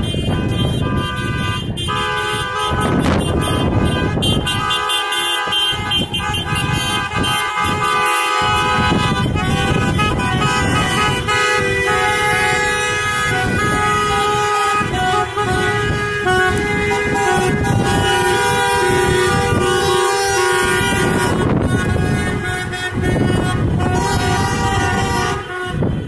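Many car horns honking at once from a procession of passing cars: long, overlapping horn blasts, held steadily throughout, over the low rumble of the traffic.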